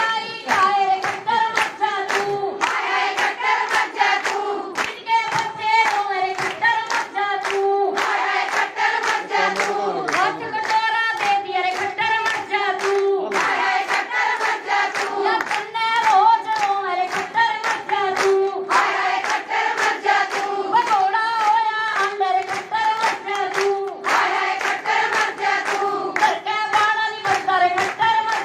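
A large crowd of women chanting in unison, led by a woman's voice over a microphone, with hand clapping throughout.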